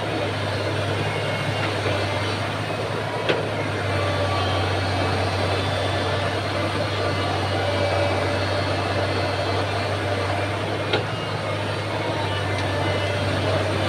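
Excavator's diesel engine running steadily with a low drone. Two sharp knocks stand out, about three seconds in and again near eleven seconds.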